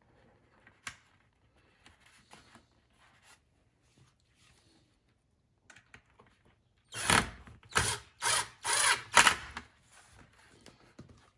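Cordless drill-driver driving a screw through a plastic hubcap into a PVC connector, run in about five short bursts over two and a half seconds starting about seven seconds in, after a stretch of faint handling clicks.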